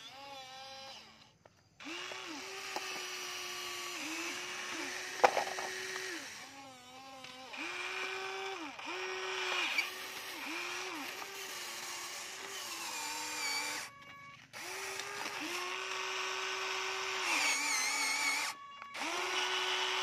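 Huina radio-controlled toy excavator's electric motors whining in many short runs as the arm and bucket move, each run rising in pitch as it starts and dropping as it stops. A single sharp knock about five seconds in.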